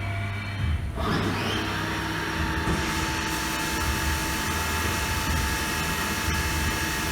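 CNC milling machine starting its drilling operation for quarter-20 holes: about a second in the spindle spins up with a rising whine, then it runs steadily with a hiss added from about three seconds in.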